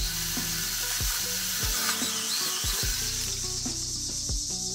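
Battery-powered brushless mini chainsaw on an extension pole cutting through an overhead tree limb, with a rush of leaves and branches as the limb comes loose; the noise stops about three seconds in. Background music with a steady beat plays underneath.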